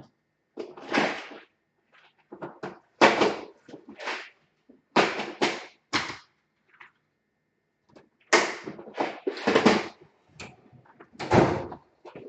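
A series of separate handling noises, a dozen or so short knocks, scrapes and rustles with brief pauses between them, as laptop parts and a replacement DC jack cable are picked up and handled on the bench.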